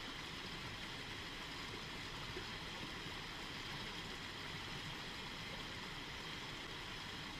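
Faint, steady rushing of a small mountain stream, with no other events.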